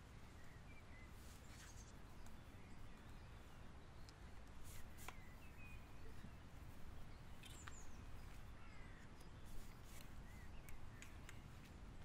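Faint woodland ambience with scattered short bird calls and a few sharp clicks and rustles from a strap being handled against a tree trunk.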